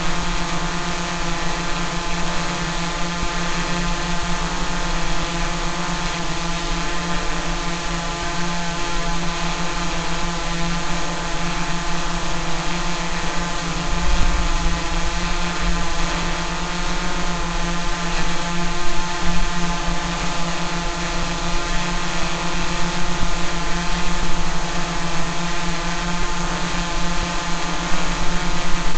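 Drone's motors and propellers buzzing steadily, one constant pitched hum with many overtones and a hiss above it.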